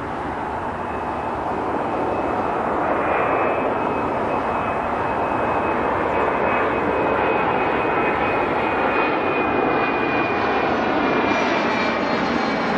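Challenger business jet's twin turbofan engines on final approach, gear down: steady jet noise that grows louder over the first couple of seconds as the aircraft nears. A high whine rides on top and slowly drops in pitch.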